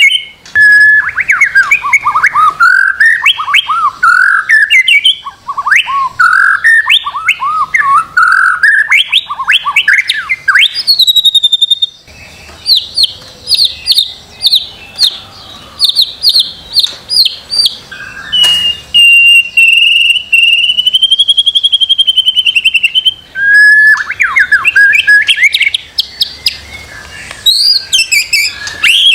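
White-rumped shama singing a loud, varied song of rich whistled phrases. Partway through comes a run of rapid repeated high notes, then a wavering trill, before the whistled phrases return.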